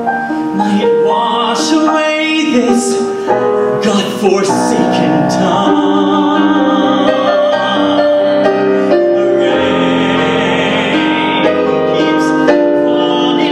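A man singing a musical-theatre ballad solo into a microphone, with piano accompaniment; in the second half he holds one long note with vibrato.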